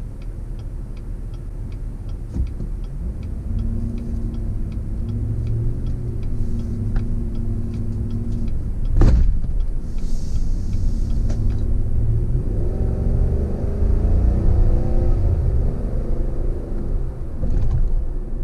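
Chevrolet Silverado 1500 pickup on the move, its engine running with a steady low rumble and picking up revs twice as it accelerates. A light regular ticking runs through the first half, and there is a single sharp knock about halfway through.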